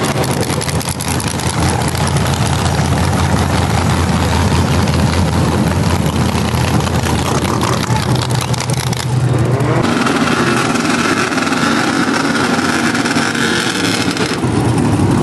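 Lowered pickup truck's engine running loudly and revving as the truck drives across the lot. About ten seconds in, the sound changes to a steadier engine note.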